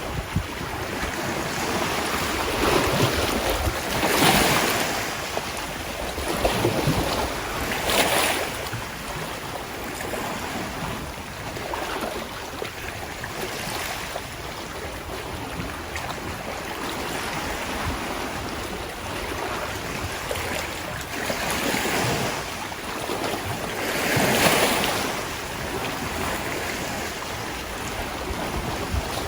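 Sea waves in the Gulf of Thailand washing in against the shore, a steady wash that swells louder every few seconds as bigger waves break.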